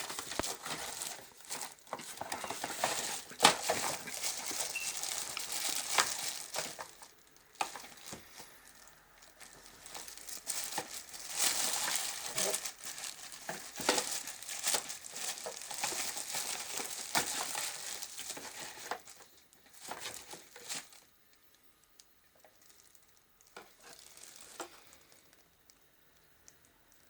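Plastic packaging crinkling and rustling, with knocks and clicks, as a new electric kettle is unwrapped and handled; the rustling stops about twenty-one seconds in, leaving only a few faint handling sounds.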